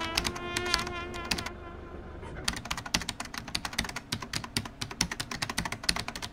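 Brass-led music trails off in the first second and a half, then a fast, irregular run of sharp clicks, several a second, runs to the end.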